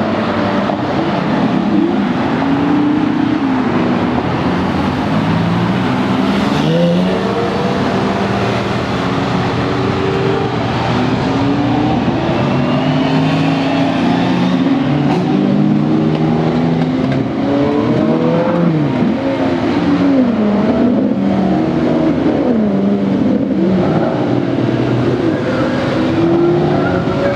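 A stream of supercars driving past on a wet circuit, many engine notes overlapping, rising and falling as cars accelerate and pass, over a steady hiss of tyres on the wet track.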